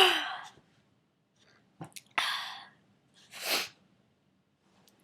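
A person with a cold in a sneezing fit: the end of a loud sneeze dies away in the first half-second. It is followed by quieter short breathy sounds about two and three and a half seconds in.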